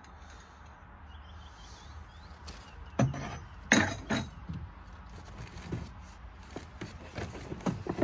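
Small objects being handled and set down: a few sharp knocks and clinks, the loudest two about three to four seconds in, then lighter taps.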